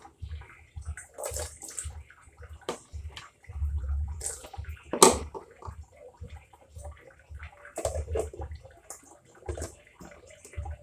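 Handfuls of chopped beetroot and carrot dropped into a blender jar of water: irregular splashes and plops, with low thuds and one sharp knock about five seconds in.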